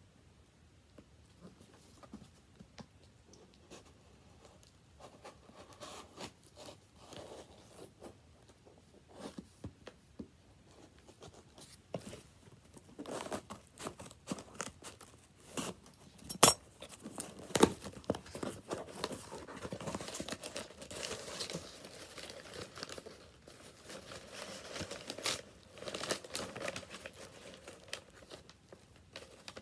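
Cardboard mailer box being opened and brown packing paper torn and crumpled, with scattered clicks and knocks. A sharp snap about sixteen seconds in is the loudest sound, followed by a long stretch of paper rustling.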